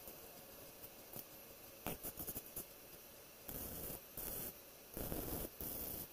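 Wire-feed welder laying short tack welds on a steel strut-channel frame: four bursts of welding arc, each about half a second long, in the second half. A few light clicks come about two seconds in.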